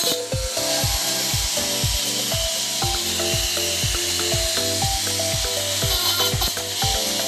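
Electronic background music with a steady kick-drum beat about two times a second, bass and a simple melody, over a steady rubbing hiss.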